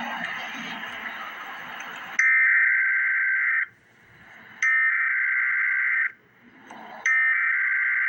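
Emergency Alert System SAME header: three bursts of digital data tones, each about a second and a half long with about a second's pause between them. A steady hiss fills the first two seconds before the first burst.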